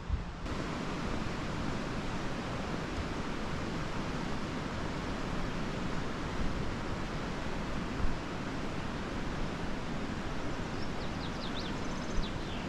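Steady rushing noise with an uneven low rumble beneath it. There is a brief knock about eight seconds in, and a few faint high chirps come near the end.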